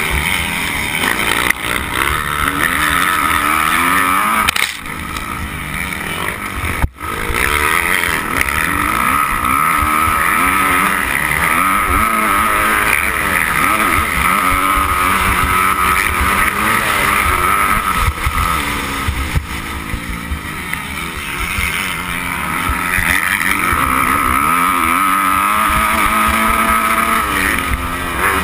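Motocross bike engine running hard under the rider, its note rising and falling repeatedly with the throttle, with a brief drop about seven seconds in.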